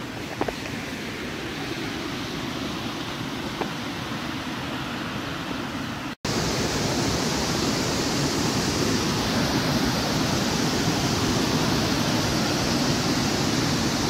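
Steady rushing of a stream running over shallow rocky rapids. After a brief cut about six seconds in, the rushing is louder and hissier, as water runs over wet rock close by.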